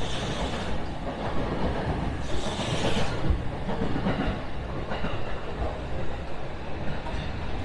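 Steady low rumble, with two brief hissing swells in the first three seconds.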